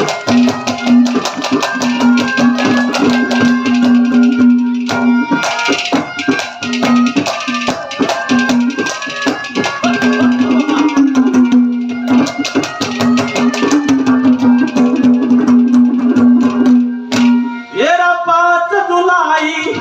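Live Haryanvi ragni band playing an instrumental passage: a steady held low note under fast, dense drumming and rattling percussion. A singing voice comes in near the end.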